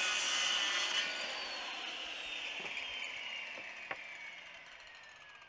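Corded circular saw finishing a cut through a treated 2x4, then the blade winding down after the trigger is released: a long whine that falls slowly in pitch and fades. A couple of light wooden knocks come partway through as the board is handled.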